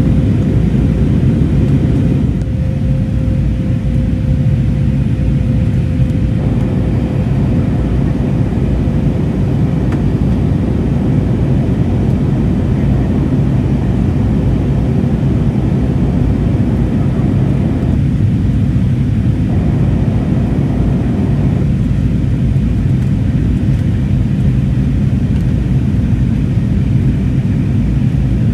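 Steady cabin noise inside an Airbus A320neo during descent: an even rush of airflow with the low hum of its CFM LEAP-1A engines. A faint steady tone fades out over the first several seconds.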